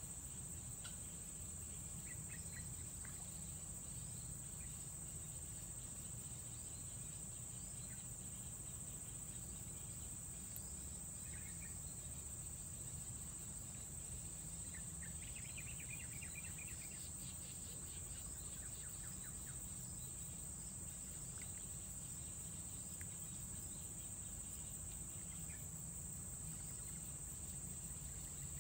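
Insects trilling continuously at one high pitch, with a few short chirps now and then over a steady low background rumble.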